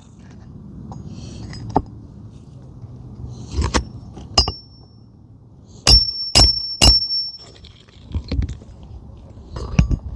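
Hammer striking roofing nails to drive them back into asphalt shingles: sharp metallic strikes, each with a short ring. Two strikes come a little before halfway, then three in quick succession just after.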